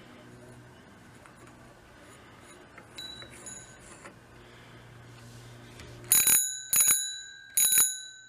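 Bicycle bell rung three times in quick succession, each strike ringing and dying away, after a couple of faint dings a few seconds earlier.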